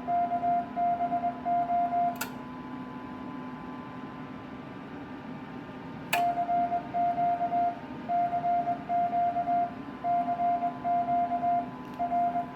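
Morse code (CW) sidetone: a steady beep keyed on and off in dots and dashes while the transmitter sends telegraphy through the VHF power amplifier. The keying stops with a click about two seconds in, leaving only a steady low hum, and resumes after another click about six seconds in.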